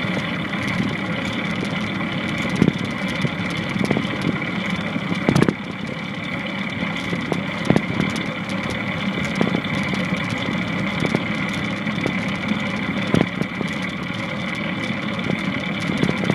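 Longboard skateboard wheels rolling on pavement with a steady drone, and sharp knocks every second or two, from the land paddle striking the ground.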